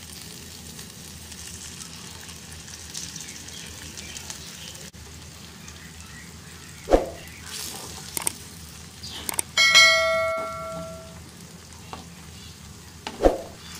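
Raw eggs sizzling in hot oil as they go into a clay pot of cooked drumstick leaves, then stirred with a slotted steel spoon. Two sharp knocks, about seven seconds in and near the end, and a metallic clink about ten seconds in that rings on for over a second.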